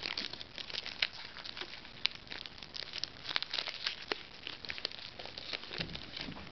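Foil wrapper of an SP Authentic basketball card pack crinkling and tearing as it is opened by hand, a dense run of sharp crackles with a few louder snaps.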